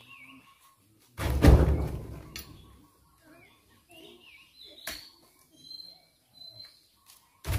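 Heavy oil palm fruit bunches thrown into the tipped-up steel bed of a dump truck: a loud thud about a second in that booms and fades over about a second, a sharp knock near the middle, and another loud thud at the end. Birds chirp faintly in between.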